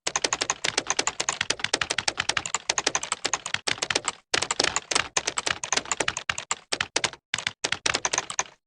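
Computer keyboard being typed on fast, with many rapid keystroke clicks in runs, a short break about four seconds in, a few brief pauses later, and the typing stopping just before the end.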